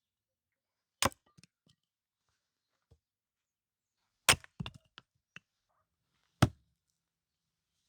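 Hatchet chopping into wood: three sharp chops a couple of seconds apart, with a few lighter knocks after the second.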